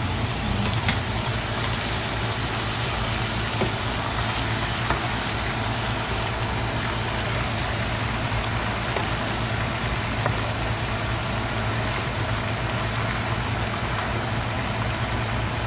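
Squid sizzling and cooking down in a nonstick frying pan as a wooden spoon stirs it, a steady crackling hiss with a few light spoon clicks. A low steady hum runs underneath.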